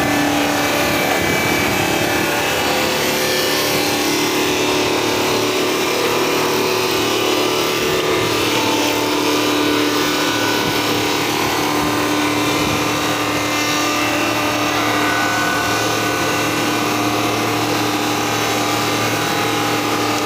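Electric-motor-driven wood-log sawdust machine running under load, its cutters reducing a log to sawdust. It makes a loud, steady grinding and running noise with a constant hum.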